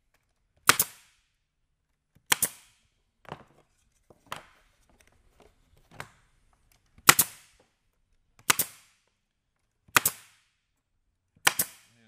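Pneumatic staple gun firing staples into the joints of a wooden Langstroth beehive frame: six loud, sharp cracks, most about a second and a half apart, with a few quieter clicks between them.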